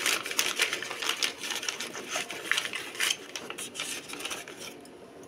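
A fast, irregular run of sharp clicks and taps, thinning out and fading near the end.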